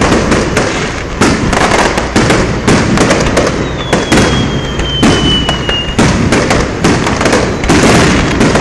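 Fireworks display: aerial shells bursting in rapid, overlapping succession, sharp bangs following each other over a continuous crackle. Midway, a thin high whistle slides slightly downward for about two seconds.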